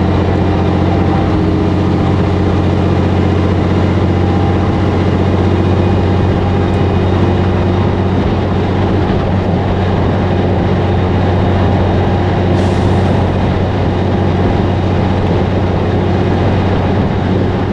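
Peterbilt cabover semi truck's diesel engine running steadily at highway cruise: a constant low drone with road noise, no change in pitch.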